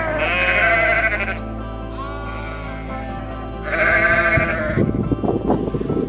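Sheep bleating twice, each bleat about a second long, over steady background music.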